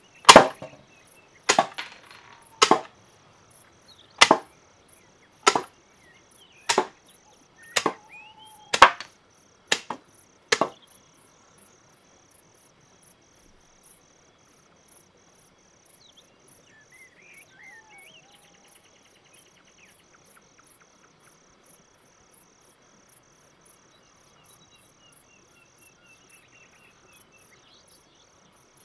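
Crickets chirping in a steady, rapid, even pulse. Over the first ten seconds come about ten sharp, loud knocks, roughly one a second.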